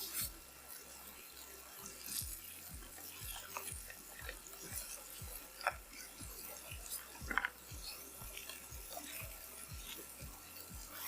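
Background music with a steady low beat. Under it is faint scraping and rubbing, with a couple of sharper clicks about halfway through.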